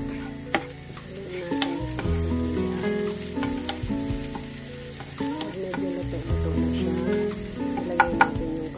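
Chopped red onion sizzling in a frying pan as it is stirred with a spatula, with a few sharp clicks of the spatula on the pan, two close together near the end. Background music with held notes plays underneath.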